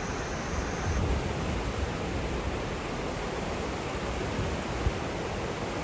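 The swollen River Mersey in flood, its fast floodwater rushing in a steady hiss, with wind buffeting the microphone in low gusts now and then.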